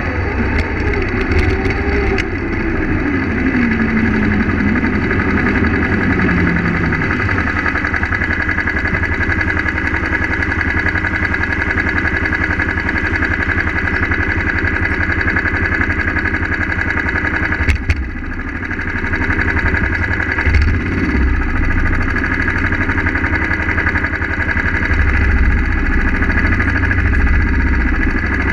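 Go-kart engine heard from on board, its revs falling over the first several seconds as the kart slows to a stop, then idling steadily. A short knock comes about two-thirds of the way through.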